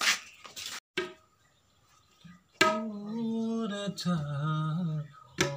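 Tabla strokes about every second and a half. Each one sounds with a long, steady held note from a man's voice. A few knocks come first, about a second in.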